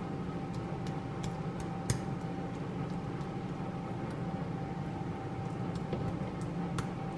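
Steady machine hum with a faint high whine running throughout, over which a metal spoon gives a few light clicks and scrapes as it spreads thick friarielli cream on pizza dough, the sharpest click about two seconds in.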